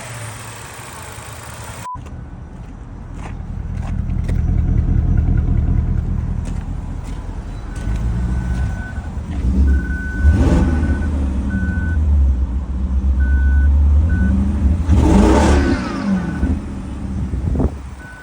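BMW E60 550i's 4.8-litre V8 running, revved up and let back down twice. It is running on a single-cylinder misfire from a bad ignition coil.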